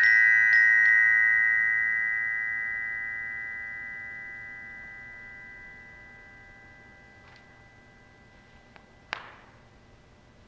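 Glockenspiel: a few last mallet strikes in the first second, then the metal bars ring on and fade slowly over several seconds. A couple of faint clicks and one sharper knock come near the end.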